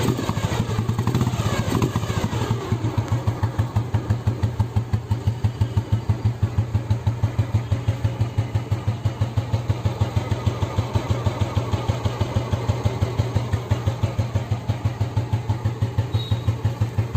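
Royal Enfield Bullet's single-cylinder four-stroke engine idling after a full restoration, with a slow, even thumping beat.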